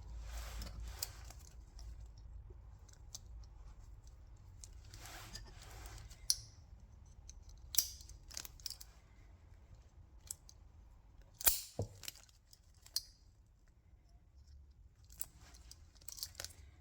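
Metal bulldog clips being squeezed open and snapped onto a freshly epoxied lock pick handle to clamp it while the glue sets: a scatter of sharp metallic clicks with light handling rustle between them.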